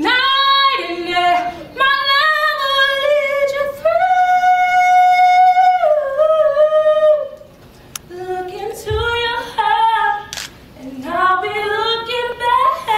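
A single high voice singing a slow song unaccompanied, holding one long note about four seconds in and dropping away for a moment around eight seconds.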